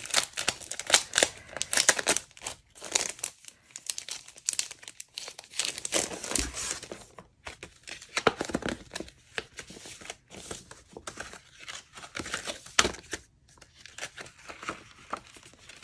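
Thin clear plastic packaging crinkling and rustling as it is handled and pulled open, in a run of irregular crackles with a few short pauses.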